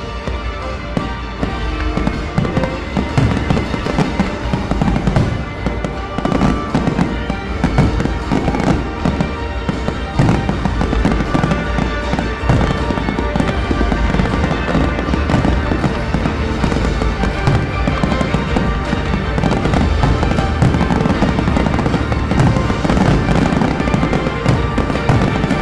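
Professional fireworks display: a dense, continuous barrage of shell bursts and crackle, with the show's music playing under it, growing slightly louder about ten seconds in.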